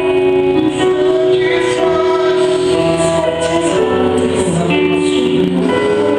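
Live gospel worship song: a band playing with a woman singing long held notes.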